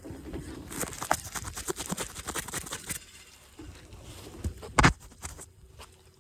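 Snow crunching and crackling in a quick run of small crunches as it is pressed or stepped on, then a single dull thump about five seconds in.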